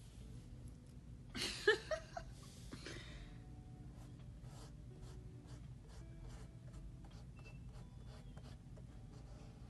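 Quiet room with a low hum and a brief breathy vocal sound about a second and a half in, then faint scattered small clicks.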